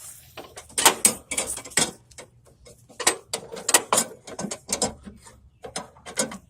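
Ratchet wrench clicking in short bursts of rapid strokes, about six bursts in all, as a bolt on the mower deck's linkage is run in.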